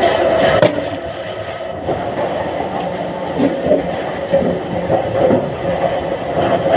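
Timber-mill machinery running steadily, with irregular knocks and rattles of logs being moved toward the debarking machine.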